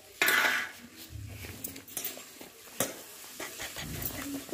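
A short animal sound, loudest about a quarter of a second in, followed by scattered light clicks of a utensil stirring in a metal wok.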